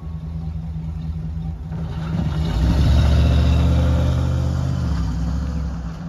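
Pup garbage truck's engine accelerating as the truck pulls away, building about two seconds in and then fading as it drives off.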